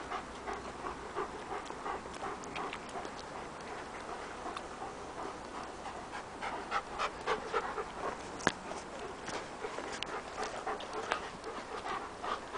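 A dog panting in quick, rhythmic breaths close by. A couple of sharp clicks come about eight and a half and ten seconds in.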